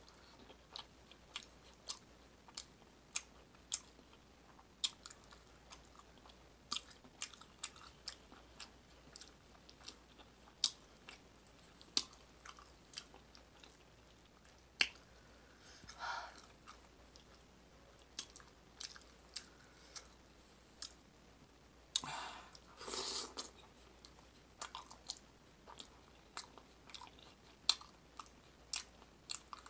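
Close-miked chewing of chili eaten with soft bread: a steady run of wet mouth clicks and smacks, with a few longer, noisier mouth sounds about halfway through and again about two-thirds in.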